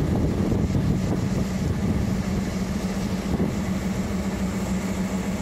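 Diesel locomotive engine idling: a steady low drone with an even hum.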